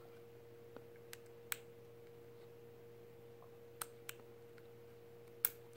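Small, sharp clicks of parts being worked by hand in a Beretta APX pistol's chassis as a pin and spring are fitted, about six in all, the loudest near the end. A faint steady hum sits underneath.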